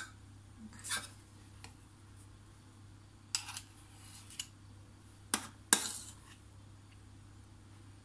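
Metal spoons clinking and scraping against a glass bowl and a glass dessert cup while thick lemon curd is spooned out: a handful of separate short knocks, two sharp ones close together a little past the middle.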